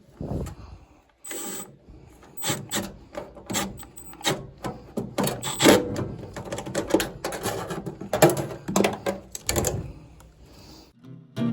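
Irregular clicking, knocking and scraping of metal parts and hand tools being handled while working on a furnace. Acoustic guitar music starts near the end.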